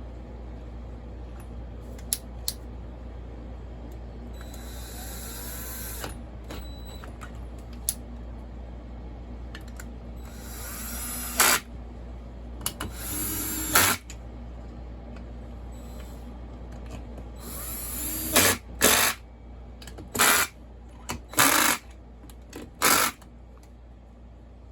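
A handheld power driver or drill run in short bursts: a few longer runs, then five or six quick bursts close together near the end, with a few sharp clicks in between.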